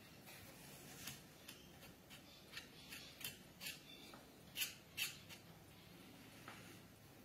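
Faint light clicks and taps of small items being handled on a hobby desk, with two sharper clicks about half a second apart a little after the middle.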